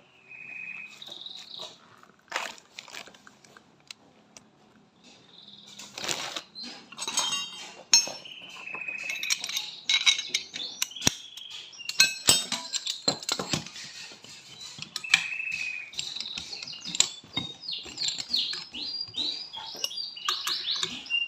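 Metal clinks and knocks of hand tools and scooter CVT parts being handled and fitted back together, the busiest stretch from about six seconds in. Birds chirp repeatedly through it, most thickly near the end.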